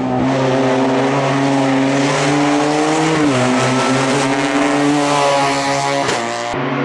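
Small classic Fiat 500 race car's engine running hard at high revs through a slalom. The pitch dips briefly about three seconds in, as on a lift or gear change, then climbs again, with a short break near the end.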